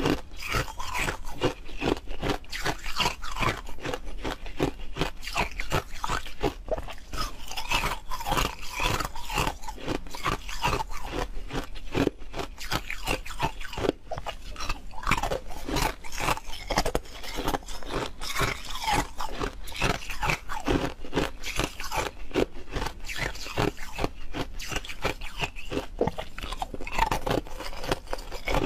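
Frozen milk ice cubes being bitten and chewed: continuous crunching made of many sharp cracks close together.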